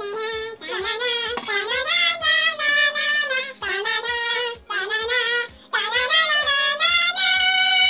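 Music: a high-pitched voice singing long held notes over a steady beat.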